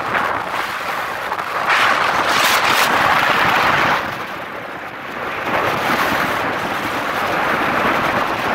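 Wind rushing over the microphone while moving along a road, a loud even noise that swells about two seconds in, eases around four seconds and builds again.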